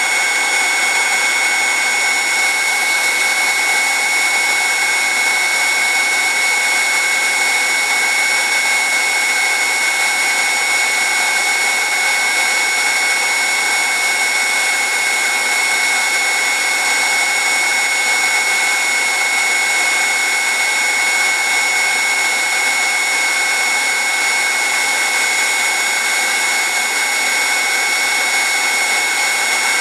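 Electric heat gun running steadily: a loud rushing hiss of its fan and air with a steady high whine. It is blowing hot air onto a kinked PEX-B pipe to relax the kink.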